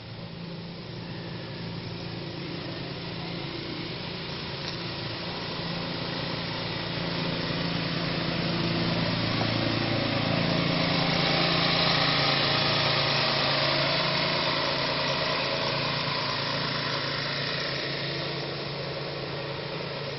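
Small engine of a motorized powder duster running steadily while its blower forces a stream of dust up into a date palm, with a loud rushing air hiss over the engine note. The sound swells to its loudest around the middle and eases off toward the end.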